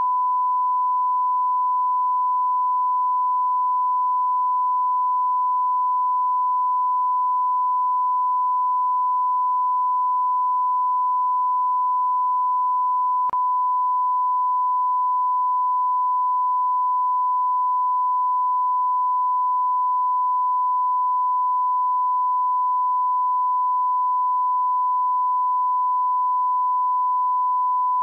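Continuous 1 kHz sine-wave test tone, a single steady pitch that never changes: the audio line-up tone broadcast alongside a television test card.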